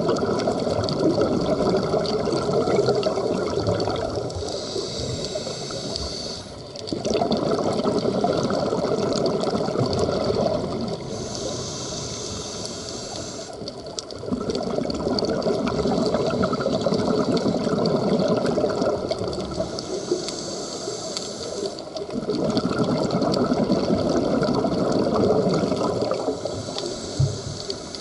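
Scuba diver breathing through a regulator: a hiss on each inhale, then a long burst of exhaled bubbles, in four slow, even breath cycles.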